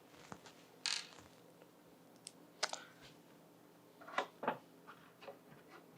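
Faint, irregular light clicks and taps as screws are driven in and the panels of a wooden PC case are handled.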